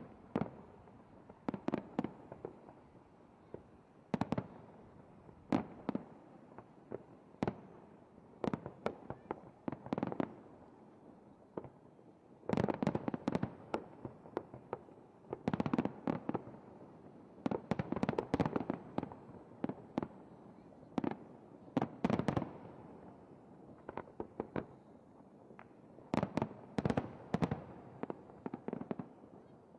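Aerial fireworks display: a string of irregular bangs and crackles from bursting shells, thickening into rapid volleys about halfway through and again near the end.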